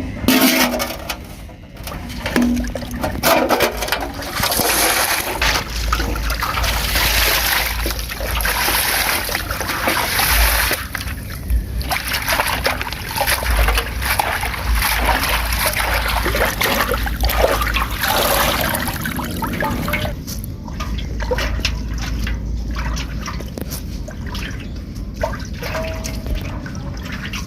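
Water trickling and splashing continuously, with scattered small knocks and clatters.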